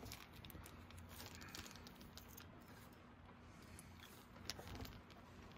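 Near silence with faint rustling and small ticks of a mesh netting wrap being peeled off an airbrushed plastic crankbait body, one slightly sharper tick near the end.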